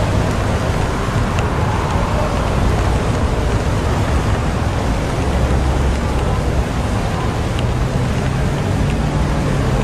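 Steady rain over a low, continuous rumble of city traffic.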